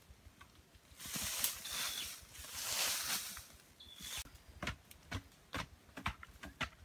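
Dry loose soil being scraped up by hand and flung, with a hissing swish of scattered dirt for a few seconds. After that, sharp knocks at about two a second as a wooden digging stick strikes the earth in the pit.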